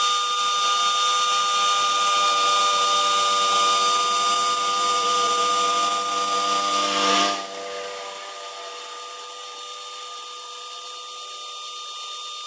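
CNC router spindle at 18,000 rpm driving a single-flute carbide endmill through a 16 mm aluminium plate: a loud, steady whine with the hiss of the cut. About seven seconds in, the cutting sound drops off sharply, leaving the spindle whining more quietly out of the cut.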